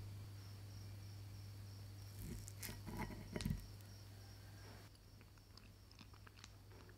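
A metal fork cuts a bite from a slice of Oreo cheesecake and clicks against a ceramic plate: a few soft clicks and knocks about two to three and a half seconds in, the last one the loudest, over a low steady hum.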